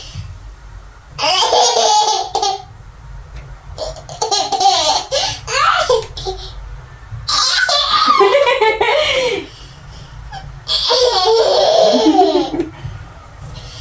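A baby laughing in four bouts, each a second or two long, with short pauses between them.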